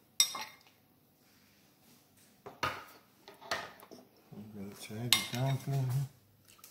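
Metal spoon and ladle clinking and scraping against a ceramic soup bowl, with a sharp clink just after the start and another about five seconds in. A man's voice is heard briefly in the middle.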